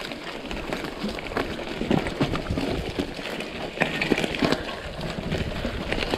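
Mountain bike riding along a dirt trail strewn with small branches: irregular clicks, knocks and cracks of the bike and snapping twigs over a steady rush of rolling noise.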